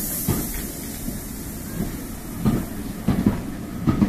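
GWR 57xx pannier tank locomotive 7714 and its train rolling slowly into a station, the wheels knocking in irregular clanks over the rail joints above a low rumble, with a fading hiss of steam.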